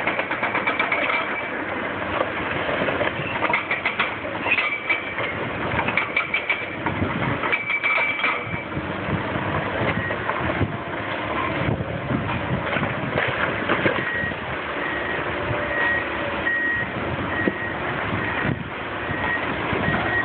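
Hydraulic excavators' diesel engines running while they tear down a stone arch bridge, with clanking and knocks of the machinery and masonry. From about halfway a reversing alarm beeps steadily, about once a second.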